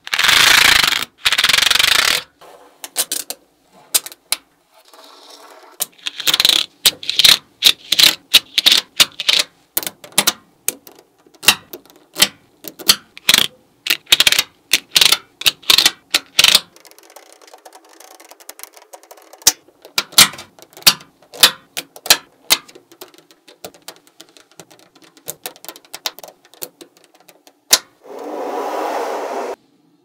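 Small neodymium magnet balls clicking and snapping together as they are pushed, split and pressed into place with a plastic card and fingers: a long run of sharp, irregular clicks. A grating rasp of the card sliding over the rows of balls fills the first two seconds, and a similar rasp comes again near the end.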